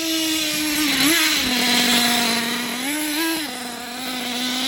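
Small nitro RC truck engine running high and fairly steady, with brief throttle blips that raise its pitch about a second in and again around three seconds in.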